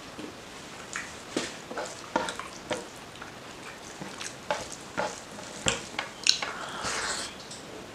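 Fingers mixing rice into oily mutton fat curry on a plate: irregular wet squishing and small clicks, with a longer squelchy stretch near the end.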